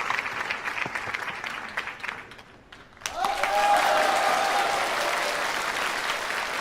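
Audience applauding. The applause dies down about two seconds in, then breaks out again louder a second later, with a long held voice over it.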